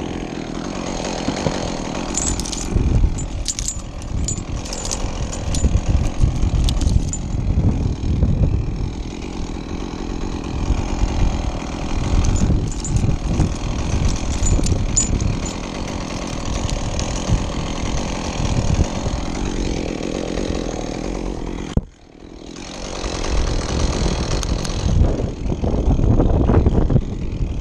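Chainsaw engine running steadily and unevenly; it cuts out abruptly about three quarters of the way through and builds back up over a couple of seconds.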